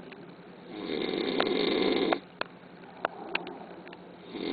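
A man snoring very loudly: one long snore of about a second and a half, then a lull with a few short clicks, and the next snore starting near the end.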